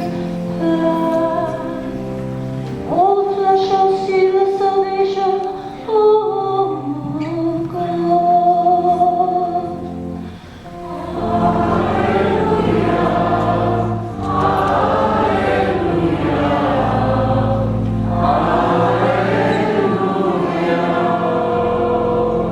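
Church choir singing with sustained accompaniment: a single melodic line over held low notes at first, then many voices joining in fuller about halfway through.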